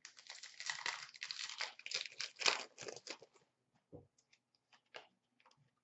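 Hockey card pack's foil wrapper being torn open and crinkled for about three seconds, followed by a few light clicks as the cards are handled.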